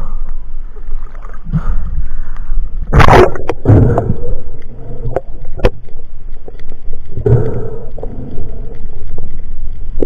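Sea water sloshing and gurgling around an action camera at the surface and underwater, over a steady low rumble, with a few sharp clicks or knocks between about three and six seconds in.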